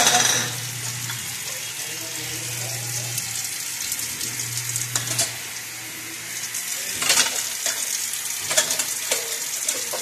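Dishes being washed by hand in a kitchen sink: a sponge scrubbing a stainless steel bowl with a steady hiss, and dishes and metal bowls knocking together, loudest right at the start and again about seven and nine seconds in.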